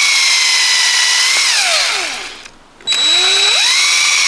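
DeWalt cordless drill running at full speed, drilling screw holes into building block. About a second and a half in it winds down with a falling whine and stops, then about three seconds in it starts again, the whine rising and holding steady for the second hole.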